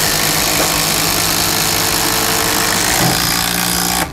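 Makita cordless impact driver hammering under load as it drives a fastener, a dense rattling clatter over a steady motor hum that stops abruptly near the end.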